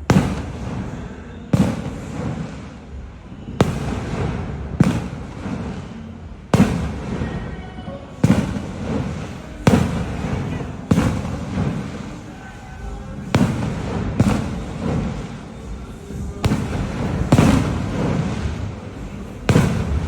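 Fireworks exploding, a sharp bang every second or two, each followed by a rumbling, crackling tail.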